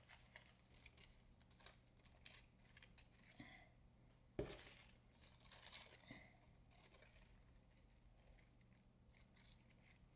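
Faint snipping of scissors cutting tissue paper, in scattered strokes, with one sharper, louder click about four and a half seconds in.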